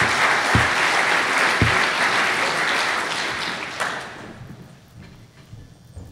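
Audience applauding in a hall, fading away about four seconds in, with two dull knocks about a second apart near the start.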